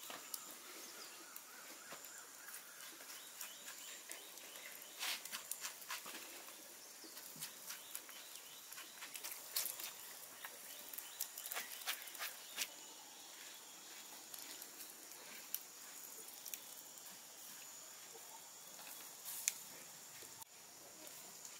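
Whole fish grilling in a wire mesh basket over charcoal embers: faint sizzling with scattered crackles and pops, thickest in the middle, over a steady high hiss.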